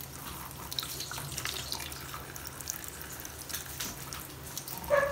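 Thin stream of tap water running into a stainless steel sink, broken by irregular splashes and drips as a cat paws at the stream. A short, louder pitched sound comes near the end.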